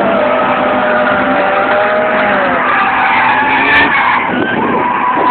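A drifting car's tyres squealing through a long slide, with the engine running hard; the squeal wavers and slides in pitch.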